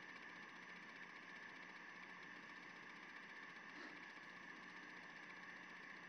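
Near silence: a faint steady hum and hiss of room tone.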